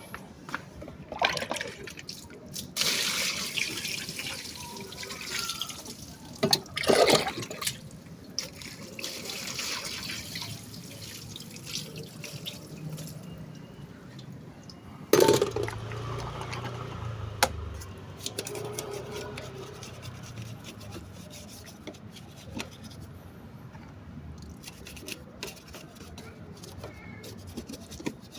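Water spraying and splashing over a Honda Vario scooter's dirty engine as it is washed, in several hissing spurts with drips and small clicks between.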